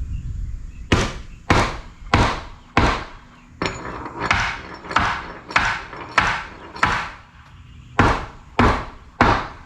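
Hammer blows knocking a tight-fitting 5/4 wooden board into a door frame: a steady run of sharp strikes a little more than one a second apart, a short pause about seven seconds in, then more strikes.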